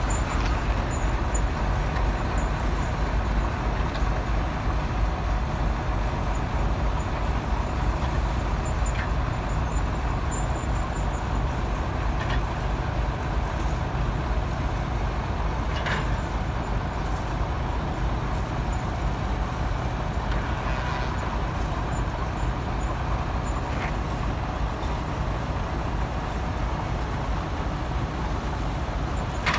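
Large engine running steadily with a low, even sound, and a few faint knocks now and then.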